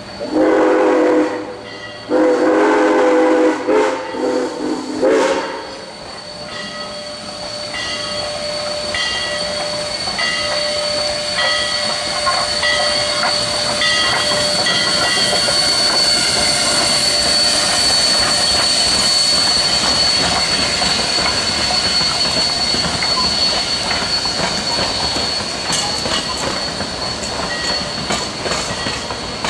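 A narrow-gauge train sounds two long blasts and then a few short ones. It then rolls by with its wheels clicking over the rail joints and a steady high wheel squeal.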